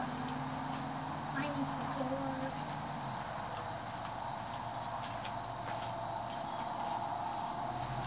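Crickets chirping in a fast, even rhythm of short high pulses, about three a second. A low steady hum in the background stops about three seconds in.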